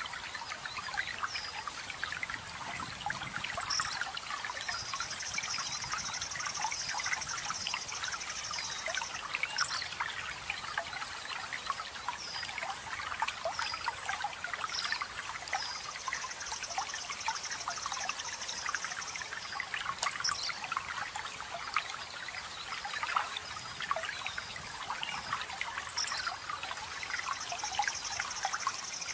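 Water steadily trickling and splashing over rocks, with songbirds above it: a fast, high trill held for about four seconds, recurring roughly every eleven seconds, and short, high, falling chirps in between.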